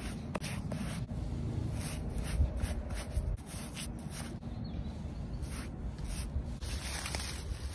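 Paintbrush stroking paint onto a wooden fence rail: repeated scratchy brushing rubs against the wood, over a low rumble.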